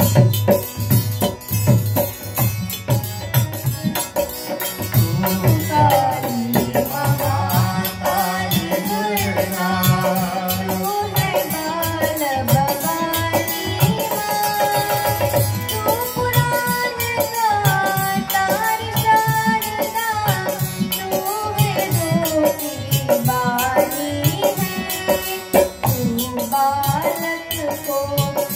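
Indian devotional song: a woman sings the melody over a hand-played dholak drum rhythm and harmonium, the voice coming in about five seconds in.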